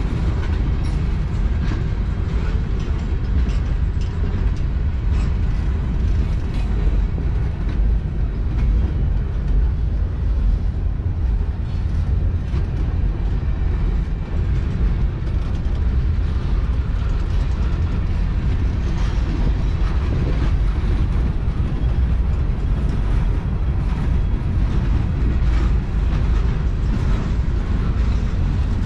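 Boxcars of a long freight train rolling slowly past at track level: a steady low rumble of steel wheels on rail, with scattered clicks from wheels and couplers.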